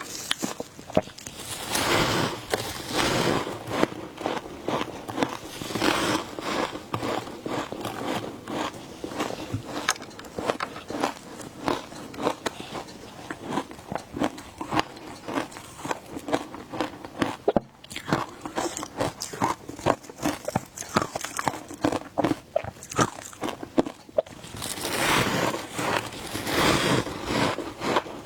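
A person biting and chewing shaved ice dusted with milk powder: a rapid, irregular run of crunches that goes on without a break, with busier, louder stretches a couple of seconds in and again near the end.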